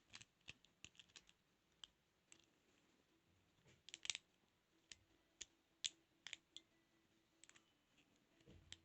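Faint, irregular metal clicks and ticks of lock picks working inside a 32mm padlock, with a few louder clicks about four and six seconds in.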